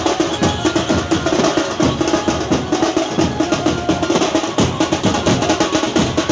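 Teenmaar street drumming: drums beaten in a fast, dense rhythm of many strokes a second, played for the dancing.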